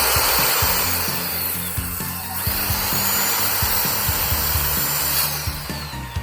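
Circular saw running and cutting through a board, a loud, steady whine that eases off a little after five seconds.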